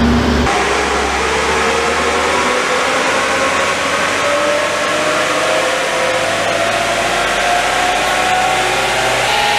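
2007 Holden Colorado turbo-diesel engine pulling under load on a chassis dyno. Its pitch climbs slowly and steadily through the run.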